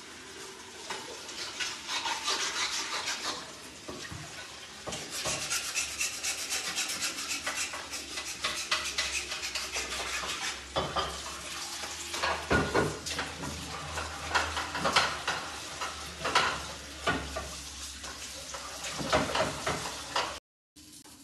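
A spoon stirring and scraping eba (garri cassava flakes being worked into a dough) in a pot: a steady run of rough scrapes and small knocks that cuts off abruptly near the end.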